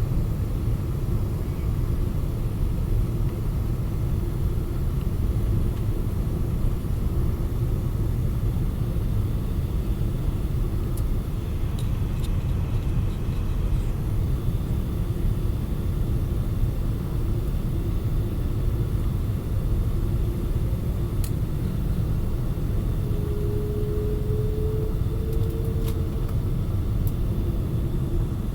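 Steady low rumble of a Boeing 777-200 airliner's engines and airflow on approach for landing. A faint hum comes in briefly about 23 seconds in.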